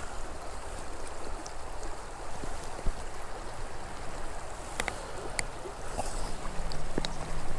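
Shallow spring creek running steadily over stones, with a few brief high clicks about five seconds in.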